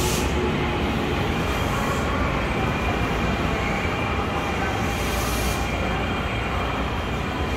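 KRL electric commuter train running past the platform: a steady rumble of wheels on rail, with short bursts of high hiss near the start, about two seconds in and around five seconds in.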